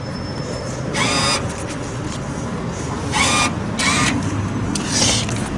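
Claw-machine arcade background: a steady low machine hum with a few short noisy sounds about one, three, four and five seconds in.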